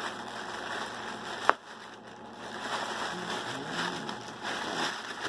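Plastic poly mailer bag rustling and crinkling as it is handled and pulled open, with a single sharp click about a second and a half in.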